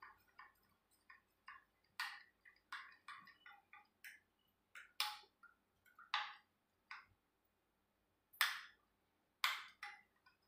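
Spoon clinking and scraping against a bowl while stirring biscuit-powder-and-milk batter: light, irregular clicks and taps with short gaps between them.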